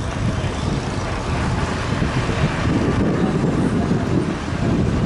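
Wind buffeting the microphone: a continuous, gusting low rumble.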